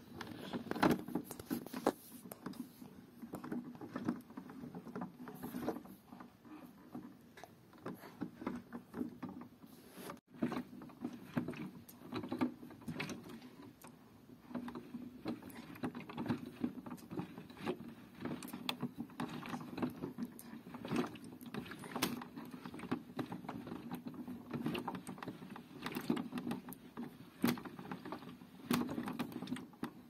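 Miele Softtronic toy washing machine running a wash: its small motor turns the drum with a steady low hum while water sloshes and the cloth tumbles, with irregular clicks and knocks from the drum. The sound breaks off briefly about ten seconds in.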